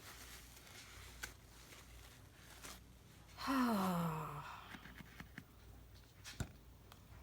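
A woman's audible sigh about three and a half seconds in, its pitch falling as the breath runs out, with a few light clicks and taps from handling craft materials on the table.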